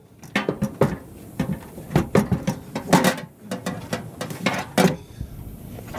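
Hand tools and metal hardware clicking and clanking irregularly, stopping about five seconds in.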